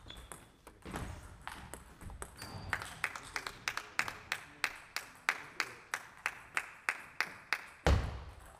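Table tennis ball clicking off bat and table. A few scattered clicks come first, then a quick, even run of about three clicks a second, ended by a heavy thud near the end.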